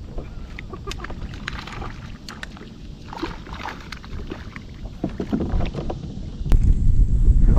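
Wind rumbling on the microphone and water lapping around a fishing kayak, with scattered light clicks and knocks. The wind grows much louder about a second before the end.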